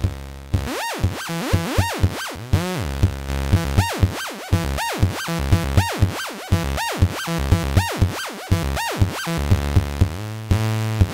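Eurorack modular synthesizer oscillator (SDS Digital VCO) whose pitch is swept up and down by a looped CV recording from the RIT_M module. The result is a fast repeating pattern of pitch swoops with sharp attacks, locked to the clock, and it shifts as the loop is edited.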